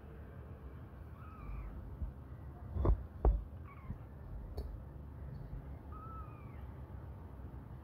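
Kittens mewing faintly in short high calls, several times. Two dull thumps come close together about three seconds in, followed by a single sharp click.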